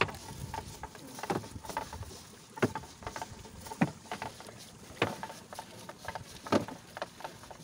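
Wet fishing net being hauled hand over hand over the side of an outrigger boat: irregular sharp slaps and knocks as the mesh hits the hull, with water splashing and dripping off it.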